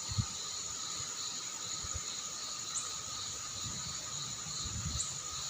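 Crickets and other insects trilling steadily in several high pitches, one of them pulsing in a regular beat. Two short rising chirps sound about three and five seconds in. Low gusts of wind rumble now and then, building toward the end.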